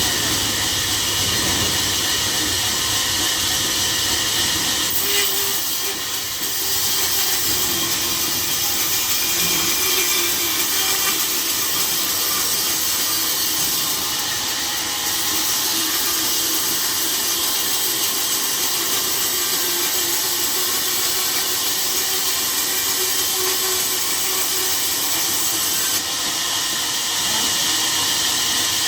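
Sawmill saw running through timber: a steady, loud hiss that barely changes, dipping slightly about five seconds in.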